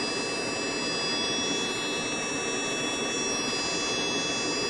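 Small 2.5-inch dynamic speaker driven by a function generator's square-wave signal: a steady buzzing tone with many overtones that holds without change.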